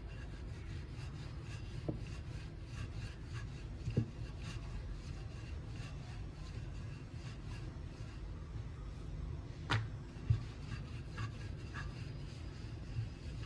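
Wooden rolling pin rolling over a stack of three oiled maida dough rounds on a stone countertop, pressing them together into one thin sheet: a steady low rubbing rumble with a few short sharp knocks.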